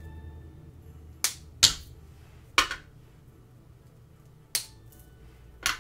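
Brittle dalgona (honeycomb sugar) candy snapping as bits are broken off its edge by hand: five sharp cracks, two close together about a second in, then three more spread out.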